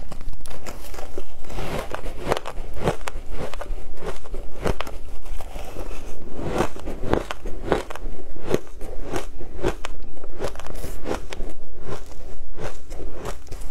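Crushed ice dusted with matcha powder being bitten and chewed, in a run of sharp, irregular crunches a few times a second.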